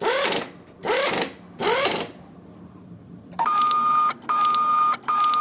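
Small label printer feeding out labels: three short whirring feeds about a second apart, then three longer feeds, each with a steady high motor whine.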